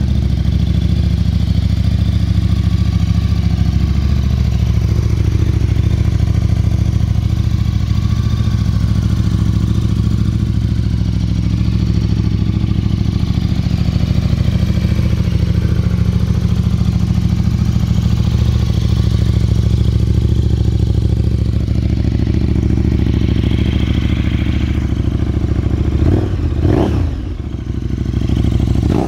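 KTM 1290 Super Duke R's V-twin idling steadily through a Scorpion aftermarket exhaust, then blipped near the end so the revs rise and fall quickly.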